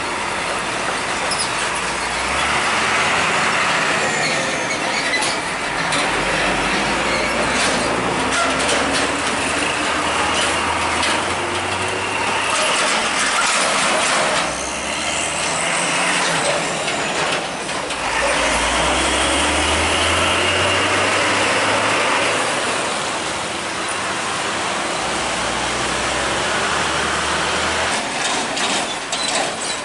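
Heavy road traffic passing close by one vehicle after another: truck engines running and tyre noise swelling and fading with each pass, with scattered sharp knocks.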